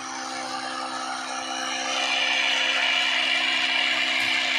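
Small electric motor inside a model tractor running steadily with a whirring hum, turning a drive shaft that powers a miniature flour mill. The whir grows louder and hissier about two seconds in.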